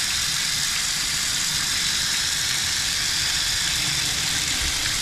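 Hose water spraying steadily onto the outside door of an RV's tankless water heater and the wall above it, a constant hiss of splashing water like a heavy downpour, as in a water intrusion test.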